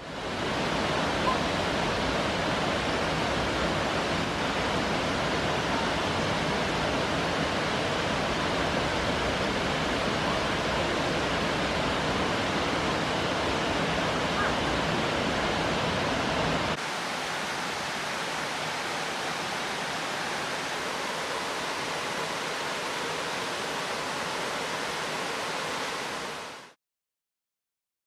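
Steady rushing of Nomizo Falls, a small waterfall cascading over stepped rock through a cave tunnel. About two-thirds of the way through it switches abruptly to a quieter, thinner rush with less low rumble, then fades out shortly before the end.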